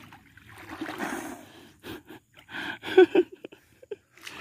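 Hard breathing and short gasps of a person swimming through deep water, with a breathy exhale about a second in and a few quick voiced puffs near the end.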